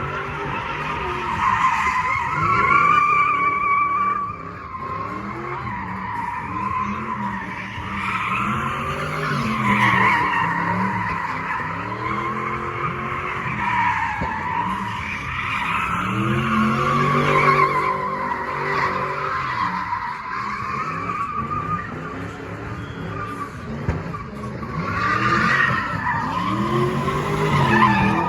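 Car spinning donuts: tires squealing in a continuous wavering screech while the engine revs rise and fall over and over, every couple of seconds.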